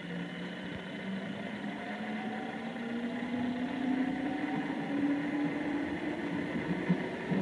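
Electric train's traction motors humming with a whine that rises slowly in pitch as the train accelerates out of the station, heard from inside the passenger car.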